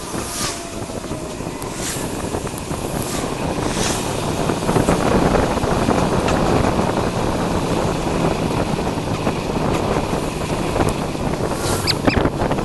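Wind rushing over the microphone of a camera on a moving recumbent bicycle. The rush grows louder about four seconds in, with a few short swishes.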